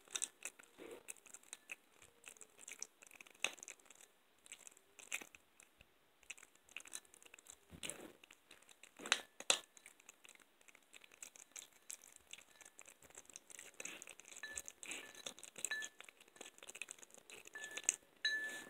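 Kitten gnawing and crunching a raw chicken back: faint, irregular crunches and clicks of bone and cartilage being chewed, the loudest about nine seconds in.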